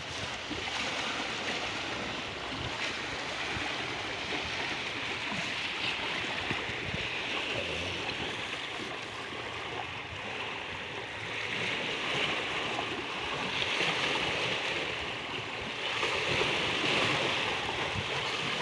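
Small sea waves washing against shoreline rocks: a steady hiss of water that swells and eases every few seconds.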